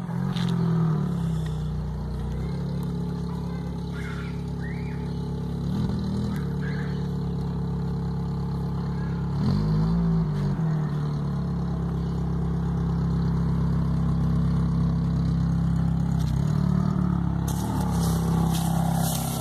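A car engine running steadily, its pitch dipping and rising briefly a few times, with a patch of light clicking near the end.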